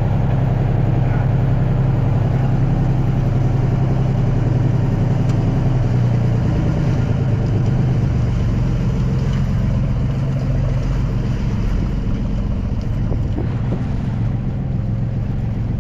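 Motorboat engine running steadily at cruising speed, a loud even low hum.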